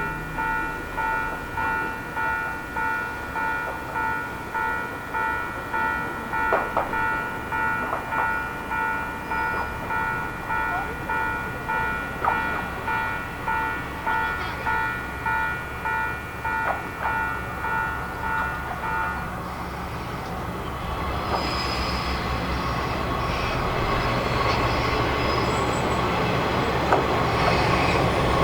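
A repeating electronic warning bell chimes steadily at about one and a half strokes a second, then stops about two-thirds of the way in. An approaching diesel railcar's rumble and wheel noise then grow steadily louder, with a few high wheel squeals near the end.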